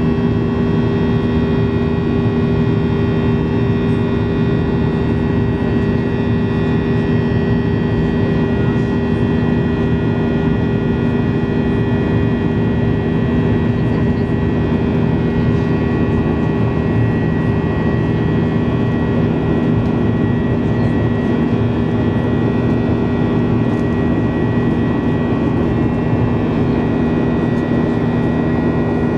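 Boeing 737-800's CFM56-7B turbofan engines running steadily, heard from inside the cabin: an even, unchanging noise with several steady humming tones in it.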